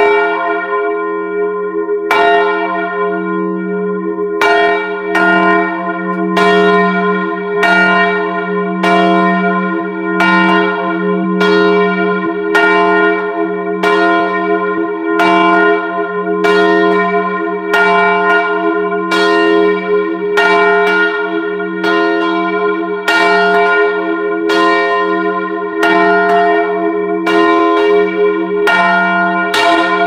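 A ring of eight church bells, tenor 22 cwt in E flat, rung full circle in change ringing, heard from inside the bell chamber: a continuous, even stream of loud strikes over a sustained low hum, with the bell nearest the microphone the loudest.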